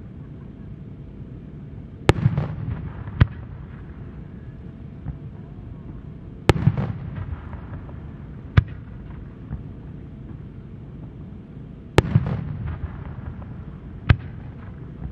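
Aerial firework shells bursting: six sharp bangs in three pairs. The first bang of each pair trails a rumbling echo and crackle, and the second is a single crack a second or two later.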